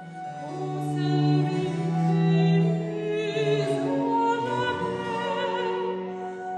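Soprano singing a French Baroque cantata aria with vibrato, a wooden baroque flute playing alongside her, over harpsichord and cello continuo.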